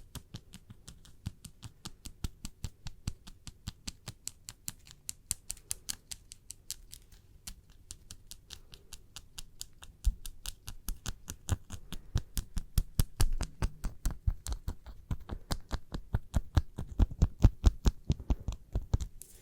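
Fingernails tapping rapidly, about five sharp taps a second. About halfway through the taps get louder, with a duller knock underneath each one.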